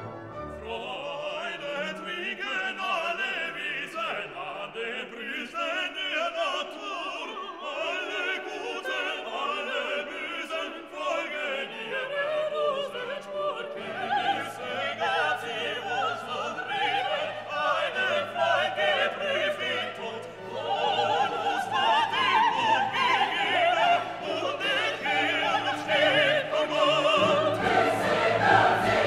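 Background classical music: singing voices with an orchestra, getting louder in the second half.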